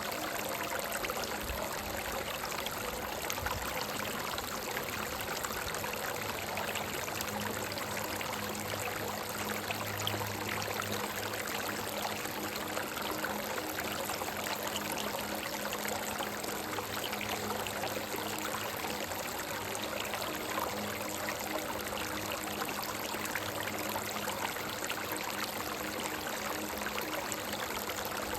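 Stream of water running steadily over rocks, a continuous even rushing and trickling.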